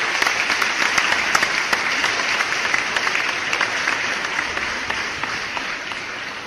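Applause from a group of people, many hands clapping, dying away toward the end.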